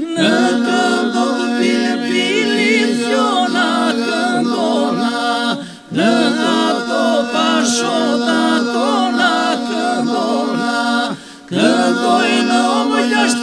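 Men's Albanian iso-polyphonic group singing a cappella. The group holds a steady drone while the lead voices sing wavering, ornamented lines on vowels without words above it. The singing breaks briefly twice, about six and eleven seconds in.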